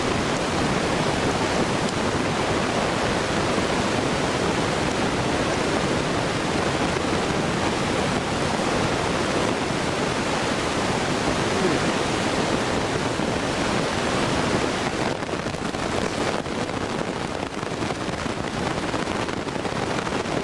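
Electric fan running, a steady rushing noise of moving air.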